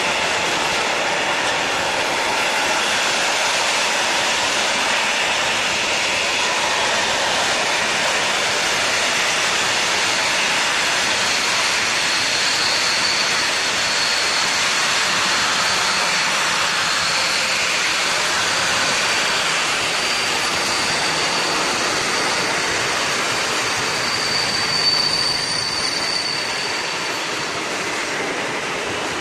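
Freight train of bogie tank wagons rolling past close by, a steady noise of wheels on rail. A thin, high wheel squeal comes in about twelve seconds in, is strongest near the end, and fades shortly before it stops.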